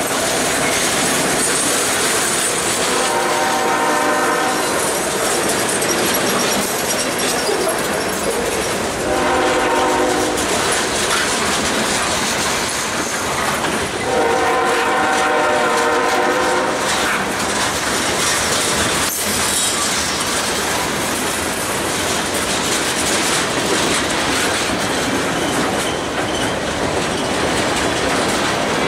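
Freight cars rolling past close by with steady wheel clatter and rumble. Over it a train horn sounds in blasts, about 3 s in, about 9 s in, a longer one about 14 s in, and another starting at the end.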